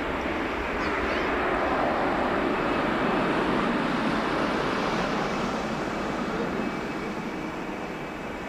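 Twin jet engines of a Boeing 777 freighter running as it taxis toward the runway: a steady roar that swells from about a second in and eases off a little near the end.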